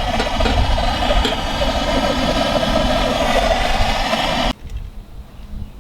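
A fire-starting tool running steadily into lump charcoal to light it, then switched off abruptly about four and a half seconds in.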